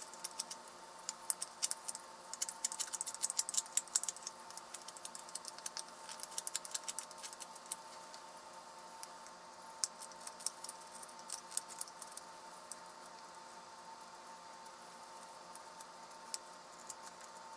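A carving knife whittling a wooden spoon by hand: quick runs of small, dry clicking cuts as the blade shaves off chips. The cuts come thick in the first half and grow sparse and spaced out later.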